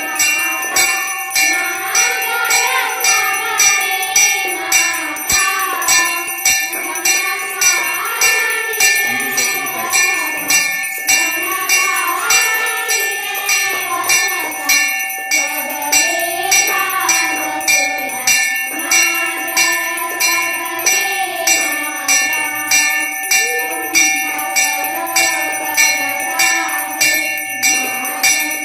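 Girls' voices singing a Hindu aarti hymn, with a bell struck in a steady, even rhythm throughout.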